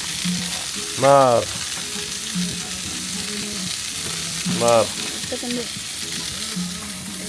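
Food frying with a steady sizzle. Two short exclamations from a voice break over it, about a second in and again near five seconds.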